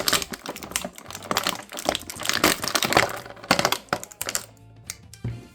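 Action figure packaging being handled: a quick run of small plastic clicks and crinkles, thinning out and quieter near the end.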